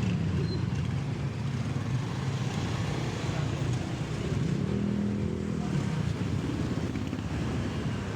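A vehicle's engine running steadily with road noise while driving, its hum rising a little about halfway through and settling again.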